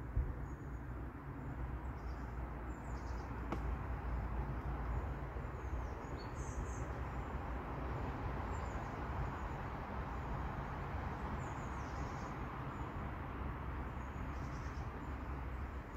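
Riverbank outdoor ambience: a steady rushing noise with a low rumble, with small birds chirping faintly and high-pitched now and then. A single light click about three and a half seconds in.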